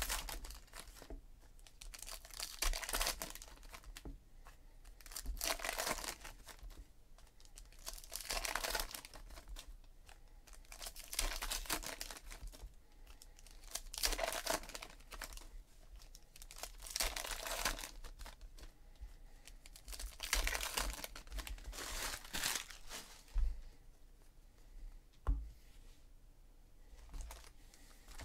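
Trading-card pack wrappers being torn open and crinkled, pack after pack, in bursts every few seconds with cards shuffled in between. A single sharp knock near the end.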